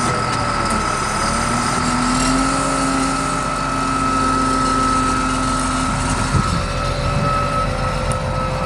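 Caterpillar 140G motor grader's diesel engine running steadily, with a steady high whine alongside.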